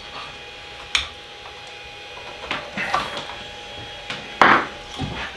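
Handling noises from an Ender 3 Pro 3D printer: a sharp click about a second in as its power cord is unplugged, then a few knocks and a louder brief scrape near the end as the printer is turned around on the countertop. A faint steady tone hums underneath.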